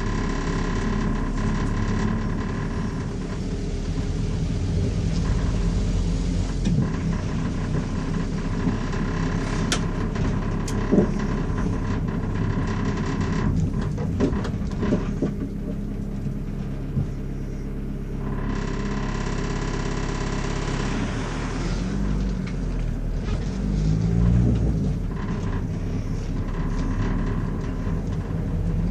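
Car driving, heard from inside the cabin through a dashcam microphone: a steady low engine and road rumble with a few short knocks, the engine pitch rising and falling a few times about two-thirds of the way through.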